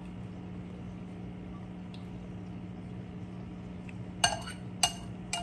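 Metal spoon clinking against a small cup of pudding as it is dipped back in: three sharp clinks with a brief ring, about half a second apart, near the end. Beneath them runs a steady low hum.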